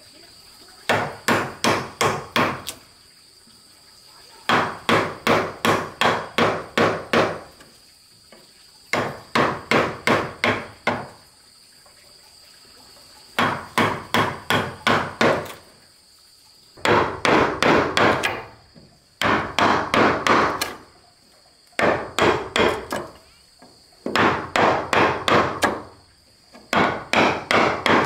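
Wooden mallet driving a chisel into timber, in quick runs of about four to eight sharp blows, roughly three a second, with pauses of a second or two between runs. A steady high insect drone runs underneath.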